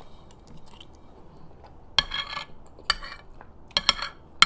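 A utensil clinking against a dish: a quiet stretch, then a few sharp, ringing clinks in the second half.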